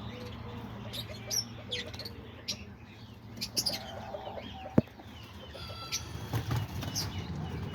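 Mixed aviary birds (cockatiels, parakeets, lovebirds and diamond doves) chirping and calling in short, scattered notes, with one sharp click about five seconds in.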